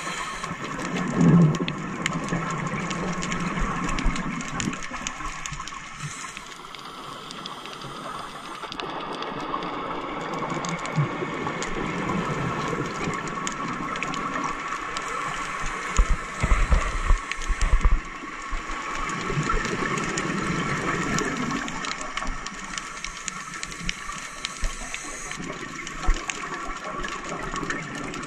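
Underwater sound of scuba regulator exhalation bubbles: a rushing, gurgling swell every eight or nine seconds as the divers breathe out, over a faint steady hum. A cluster of low knocks comes a little past the middle.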